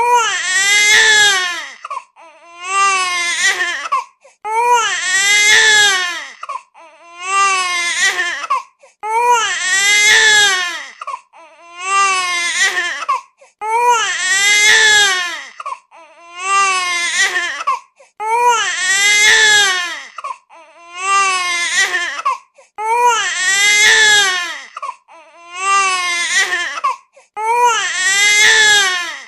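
Infant crying in a steady run of wails, about one every two seconds, each rising and falling in pitch, with short breaths between them.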